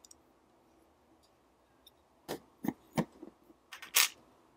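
Sharp clicks and knocks of small metal parts as a Leica M3's shutter speed control module is fitted to the camera body and the body is handled, starting about two seconds in; the loudest is a cluster of knocks near the end.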